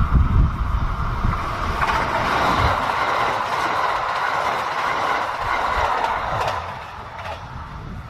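Kintetsu electric limited-express train passing close by: a steady rush of wheels on rail with a few sharp clacks over rail joints, dying away near the end. Wind buffets the microphone at the start.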